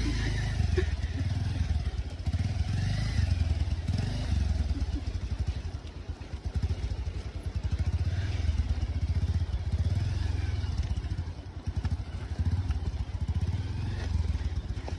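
Motor vehicle engine running through an off-road ride, a low pulsing rumble that eases off briefly a couple of times.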